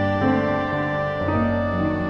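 Background music of slow, held chords whose notes change about every half second.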